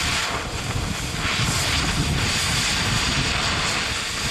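Oxy-acetylene cutting torch running steadily as its oxygen cutting jet slices through a steel bolt head, a continuous rushing hiss over a low rumble.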